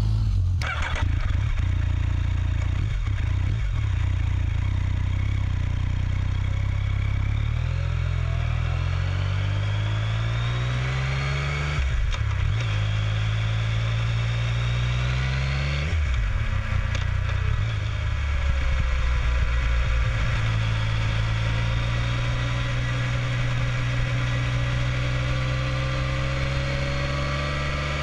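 Yamaha Tracer 900's inline three-cylinder engine pulling away and accelerating through the gears. The engine note climbs twice, dropping sharply at an upshift about 12 and 16 seconds in, then settles into steady cruising.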